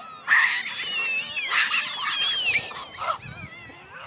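Large troop of gelada monkeys calling: many overlapping high-pitched squeals and screeches that glide up and down, dense and loud through the first two and a half seconds, thinning out and quieter near the end.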